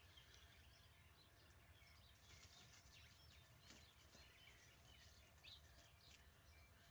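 Near silence: faint outdoor background with scattered faint bird chirps.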